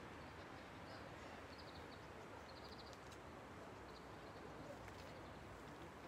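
Faint outdoor quiet with a small bird calling several times in short, high, rapid trills.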